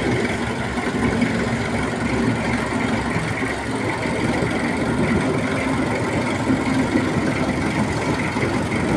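Road roller's engine running steadily at idle.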